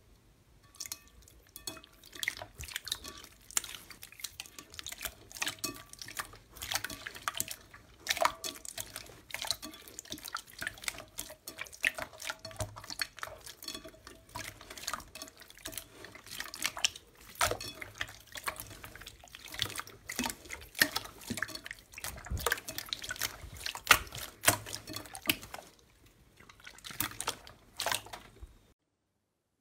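Hands squeezing and kneading clear, water-like 'fake water' slime: quick, irregular wet squelches and sharp sticky clicks, which stop shortly before the end.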